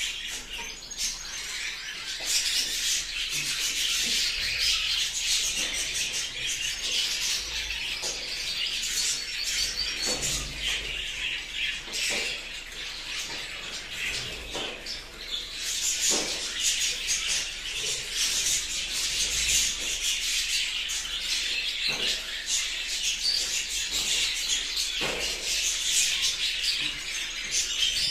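A room full of caged budgerigars chattering and chirping continuously, many birds calling over one another, with a few light clicks mixed in.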